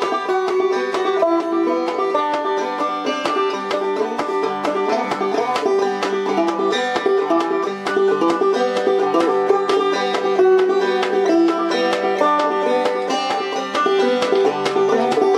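Five-string banjo played clawhammer style: a quick, steady run of plucked notes over a repeated drone note, the tutorial's scale exercise with slides and hammer-ons.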